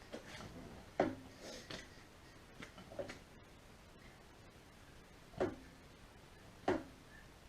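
Scattered knocks and clinks of tools and parts being handled and set down: about seven short, sharp sounds with brief ringing. The loudest comes about a second in, and two more stand out in the second half.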